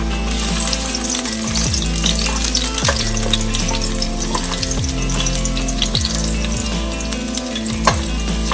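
Chopped ginger and garlic sizzling and crackling in hot olive oil in a kadhai, with two brief knocks about three and eight seconds in.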